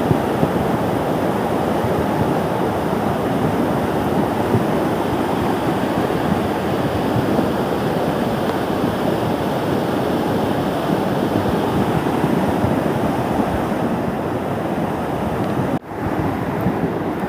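River in spate after heavy rain, its water rushing in a steady, loud wash. The sound drops out for an instant near the end.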